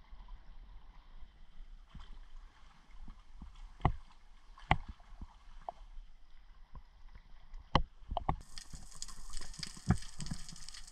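Water lapping and sloshing around a spearfisherman swimming at the sea surface, with several sharp knocks. About eight seconds in, the sound changes to a bright underwater hiss of bubbles and rushing water as the camera goes under.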